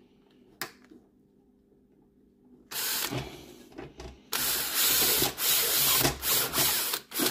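Power drill-driver driving a screw into a sandwich toaster's replacement hinge bracket. It starts about three seconds in with a short burst, then runs in longer bursts with brief stops near the end.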